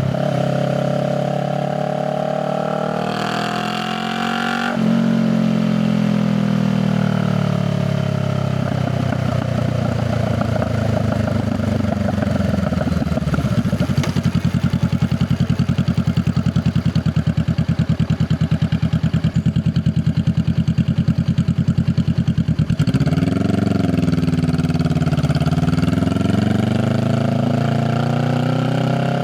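Honda Rebel 500's parallel-twin engine through its exhaust: it pulls up through a gear with a shift about five seconds in, rolls off and settles to an evenly pulsing idle for roughly ten seconds, then revs and pulls away again near the end.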